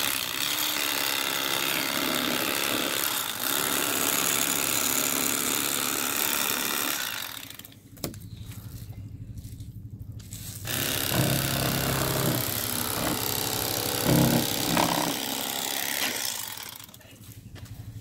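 Electric fillet knife running as it saws through a walleye, cutting the fillet off along the backbone. The motor stops for about three seconds partway through, runs again, and stops near the end.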